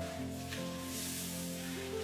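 Background music with sustained notes that shift in pitch, over a faint hiss.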